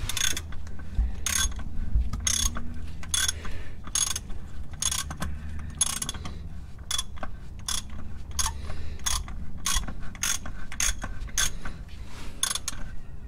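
Ratchet wrench clicking as it is swung back and forth to tighten the oil filter housing cap. Short bursts of ratchet clicks, one on each return stroke, come about twice a second.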